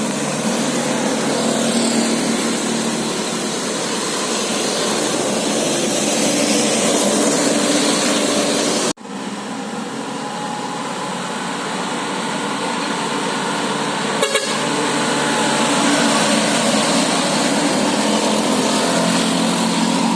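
A bus's 18-trumpet telolet musical air horn sounding a run of shifting tones over a loud, dense rush of noise. The sound cuts out sharply for an instant about nine seconds in, then carries on.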